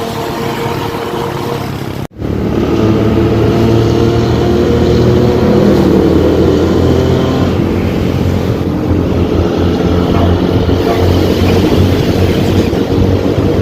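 Bus diesel engine running with a racing 'ngorok' exhaust, a loud, steady growl. The sound breaks off for a moment about two seconds in, then comes back a little louder.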